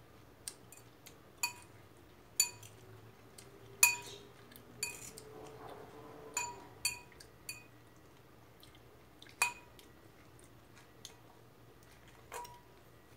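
Metal cutlery clinking against the inside of a bowl as salad is scooped up, about ten short ringing clinks at uneven intervals, the loudest about four seconds in.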